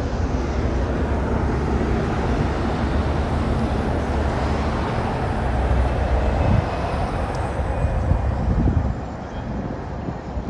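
Buses driving past on a multilane road: a steady engine hum and traffic rumble that eases off near the end.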